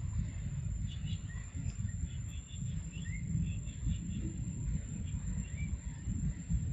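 Outdoor tree-canopy ambience: a low, uneven rumble with small birds giving short rising chirps and ticks here and there, over a steady high insect-like whine.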